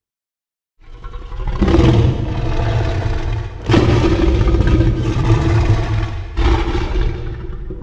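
Kaiju monster sound effect: a loud, rumbling growl-like roar that starts after a second of silence and surges three times.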